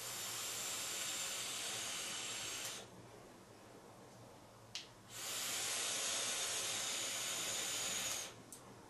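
Two long draws on an Ample Mace sub-ohm vape tank, its 0.27-ohm coil fired at 50 W. Each draw is a steady hiss of air pulled through the tank over the firing coil and lasts about three seconds. A short click comes in the quieter gap between the draws.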